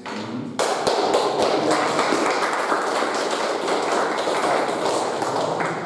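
Group of people applauding, hand claps. Starts suddenly about half a second in and stops near the end.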